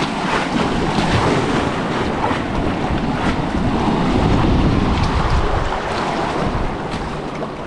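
Steady rushing noise of a river's current, with wind buffeting the microphone.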